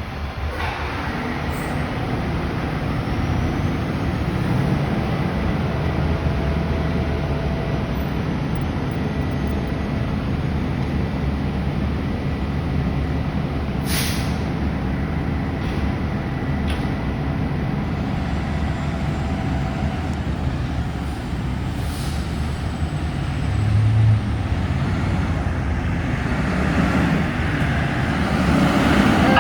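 Heavy traffic: a steady low rumble of truck and vehicle engines, with a short, sharp air-brake hiss about fourteen seconds in.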